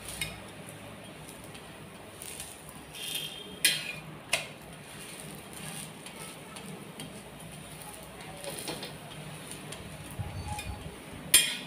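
Metal spatula scraping and tapping on a flat tawa griddle: a few scattered clinks over a faint steady hiss, with the sharpest knock near the end.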